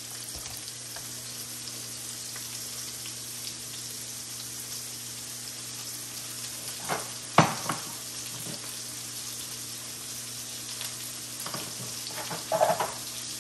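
Green beans sautéing in a hot pan over a medium-high flame, a steady frying sizzle, with a couple of brief knocks about seven seconds in and another short clatter near the end.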